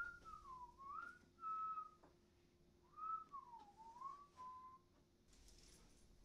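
A person whistling a short tune in two phrases; each phrase dips and rises in pitch and ends on a held note.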